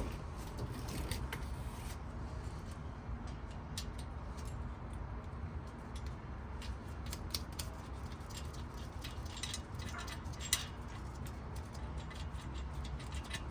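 Scattered small metallic clicks and clinks of bolts and tools being handled while the bolts of a differential cover are started, over a steady low background rumble.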